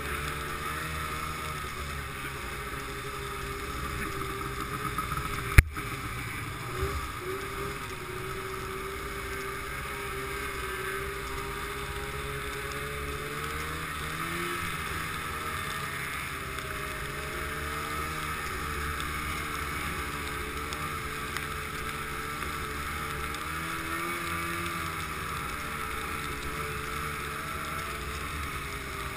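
Snowmobile engine running at speed, its pitch rising and falling a little with the throttle, with wind on the microphone. A single sharp knock comes about five and a half seconds in.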